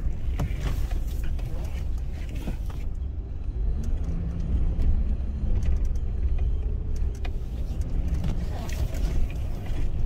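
Truck being driven slowly through a turnaround, heard from inside the cab: a steady low road and drivetrain rumble, with a low hum coming in for a couple of seconds about midway. The truck has a wheel bearing going bad, which the mechanic takes for the right-side bearing.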